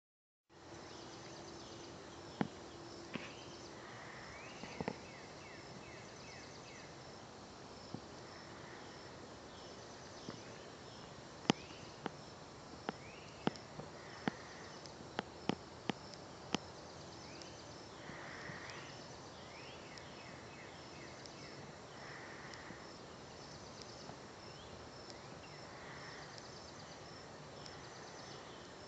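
Night insects chirping steadily in a fast, even, high-pitched pulse. Softer calls come every few seconds, and a scatter of sharp clicks falls around the middle.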